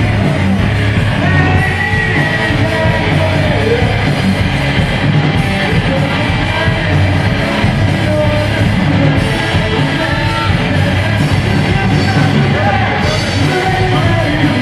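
Live rock band performing: a man singing into a microphone over electric guitar, loud and continuous.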